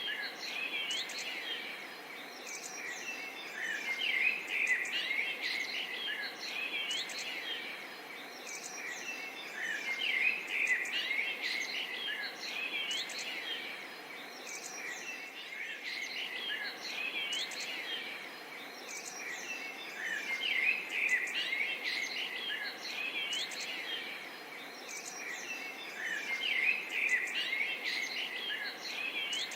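A chorus of many birds chirping and calling, dense short chirps and quick up-and-down whistles over a faint steady hiss, the chorus swelling and fading every few seconds.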